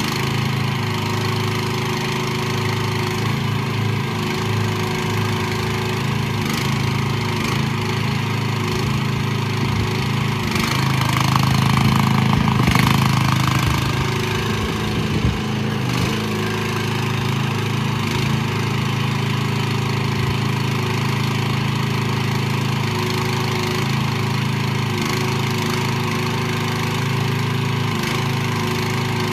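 Small 420cc single-cylinder gasoline engine of a mini excavator running steadily while the hydraulics work the boom and arm. It grows louder and changes pitch under load for a few seconds around the middle, and there is a single sharp knock about fifteen seconds in.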